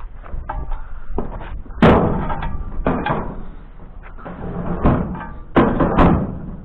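A series of sharp bangs and knocks, about five in all, the loudest about two seconds in and again near the end.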